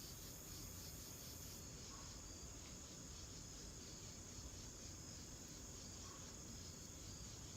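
Crickets chirping faintly in a steady high trill.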